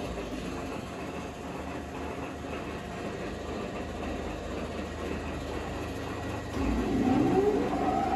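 Super Tec STC-20 centerless grinder's 20 HP wheel drive running just after start-up, a steady motor hum and whir. About six and a half seconds in, a second drive of the machine starts, louder, with a whine that rises in pitch as it spins up.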